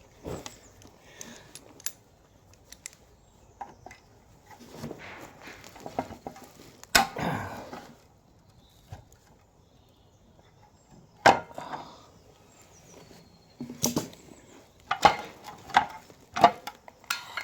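Irregular metallic clinks and clanks of hand tools working a seized bolt on a Land Rover Defender axle, with quiet gaps between them. The loudest come about seven and eleven seconds in, with a quicker run of knocks near the end.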